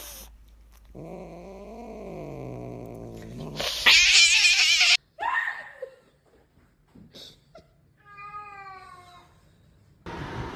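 A cat caterwauling in aggression: a long, low, wavering yowl, then a loud hiss about four seconds in, and a short falling meow near the end.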